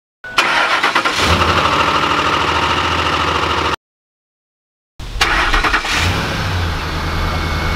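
Two cold starts of a 2005 Ford F-150's 5.4-litre Triton V8, a silent gap of about a second between them. The first cranks, catches and runs with a rapid machine-gun-like knocking clatter, which the owner puts down to a dry start with no oil on the internals. The second start is after Lucas oil stabilizer was added, which the owner says made the engine as quiet as can be.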